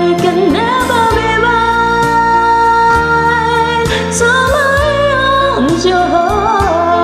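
Pop ballad playing: a gliding, wavering melody line over a steady sustained backing.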